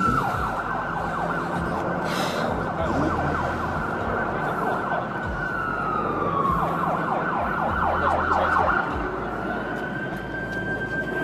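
Emergency vehicle siren wailing, its pitch gliding down and back up, with a faster warbling stretch about two-thirds of the way through.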